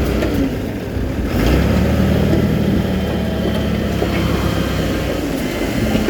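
Heavy diesel engine of earth-moving machinery running steadily, growing louder about a second and a half in as it works.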